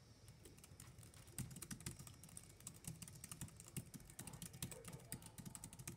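Fast typing on a Jelly Comb B047 foldable keyboard: a quick, uneven run of key clicks that becomes denser and louder about a second and a half in.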